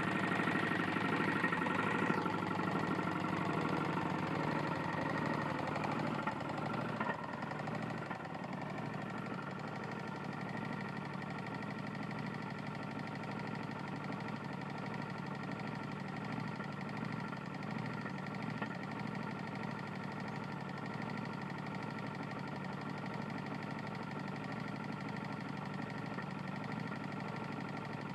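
Tecumseh single-cylinder lawn mower engine running with a knock that the owner puts down to a serious connecting rod fault. It is a little louder for the first several seconds, then settles to a steady lower run.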